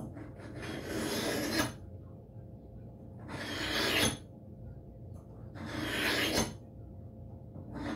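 A hatchet's steel edge being drawn across a handheld sharpener: three long strokes about two and a half seconds apart, each growing louder and then stopping sharply.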